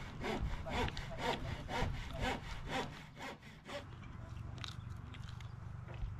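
Hand saw cutting wood in steady back-and-forth strokes, about two a second, stopping about four seconds in; a low steady hum remains after the sawing stops.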